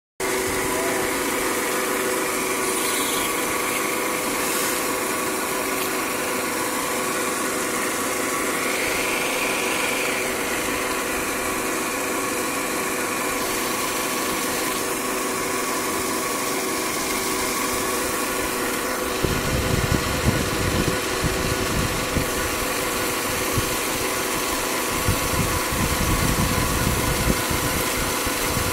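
Steady machine hum with several held tones over a wash of water noise, from the pond's fountain aerators churning the water. From about two-thirds of the way in, low gusty rumbles of wind buffet the microphone.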